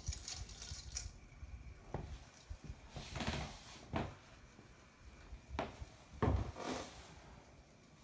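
Metal pull chain of a Hampton Bay Gazebo Plus ceiling fan clinking and ticking against the fan's switch cap, as a handful of irregular small clicks of varying strength.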